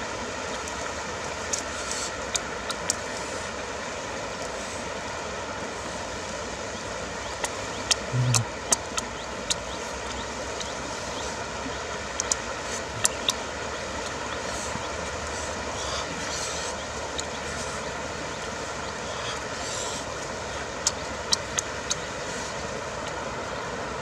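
Eating grilled fish: scattered sharp clicks of chewing and lip smacks, with a short hummed voice sound about eight seconds in, over a steady rushing outdoor background noise.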